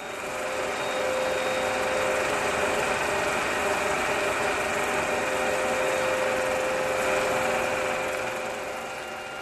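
Vintage film projector running: a steady mechanical whirr with fast fine clatter and a faint hum. It swells in over the first second and fades off near the end.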